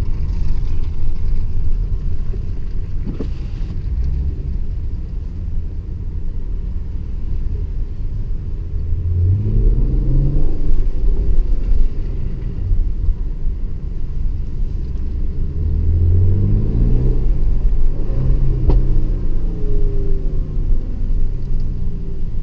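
Mercedes-AMG GLE 43's twin-turbo V6 under way with a steady low rumble, the engine pitch rising through two accelerations, about nine and sixteen seconds in. A single short, sharp snap comes about nineteen seconds in.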